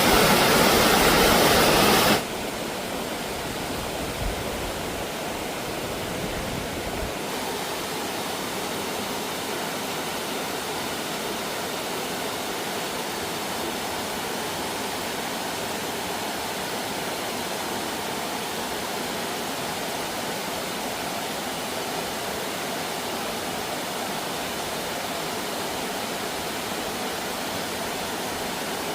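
Steady rush of flowing stream water, louder for about the first two seconds and then dropping suddenly to a quieter, even rush.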